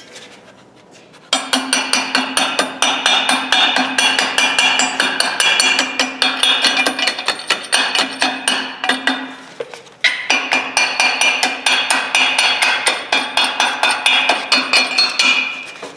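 Hammer driving a cold chisel into weld on a steel railroad-track anvil: a rapid, steady series of ringing metal-on-metal strikes, pecking to break the weld up. The strikes begin about a second in and pause briefly about ten seconds in.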